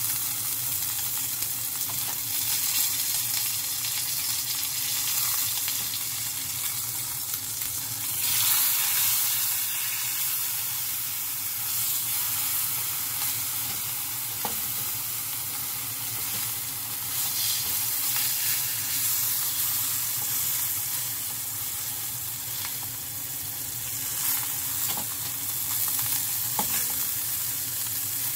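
Block of beef round searing in olive oil in a frying pan: a steady sizzle that swells louder about eight seconds in, with a few light clicks in the second half.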